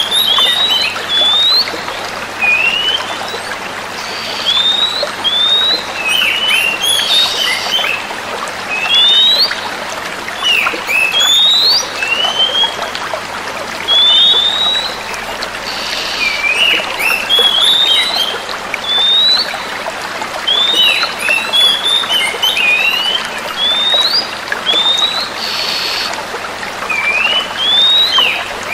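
Female oriental magpie-robins calling back and forth, a string of short whistled notes that sweep up and down, repeated every second or so over a steady background hiss.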